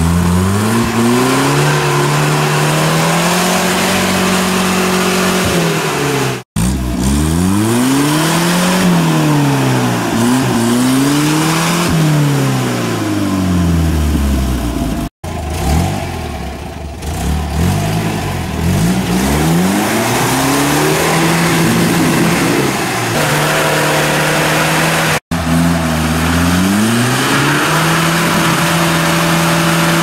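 Engines of off-road 4x4 vehicles revving hard, the pitch rising, holding and falling again and again as they drive through mud. Three abrupt cuts split the sound into four stretches.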